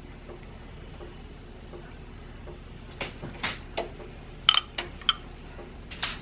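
A spoon spreading a mayonnaise spread over rolls in a baking pan, faint at first. About three seconds in comes a run of sharp clinks and knocks from the spoon and glass bowl, a few of them with a short ring.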